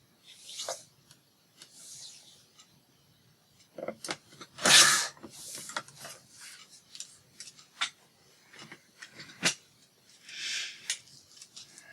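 Paper being handled on a craft table: rustling and rubbing swishes, the loudest about five seconds in, mixed with scattered small clicks and taps.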